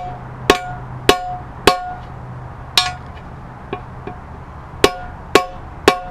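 Hammer blows on a steel race driver, seating a differential bearing race into a Ford Fiesta ST transmission case. There are about eight sharp metallic strikes, each with a short ring, mostly about half a second apart, with a pause and two lighter taps midway.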